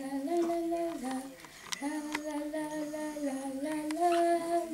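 A woman's voice singing a slow wordless tune in long held notes, with a few sharp clicks about two seconds in.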